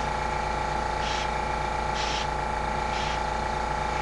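An airbrush gives three short hisses, about a second apart, as it sprays single dots of paint. Under them an air compressor runs with a steady hum.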